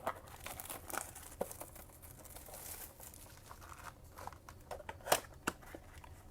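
Crinkling and tearing of packaging as a trading-card blaster box and its wrapped packs are opened, with small crackles throughout and one sharper snap about five seconds in.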